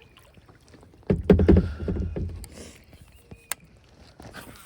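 Knocking and rubbing against a kayak's hull as the angler moves and handles gear, loudest between about one and two and a half seconds in, followed by a single sharp click.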